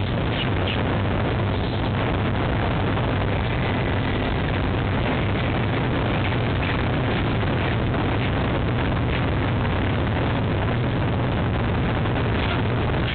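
Steady rumble of city street traffic picked up by a nest-box webcam microphone, with a steady low hum underneath.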